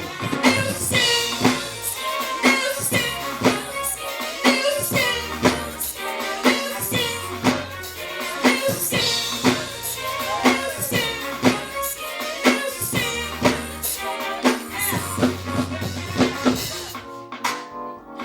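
Upbeat gospel song with a drum kit keeping a steady beat of about two strokes a second, bass, and singing. The music thins out near the end.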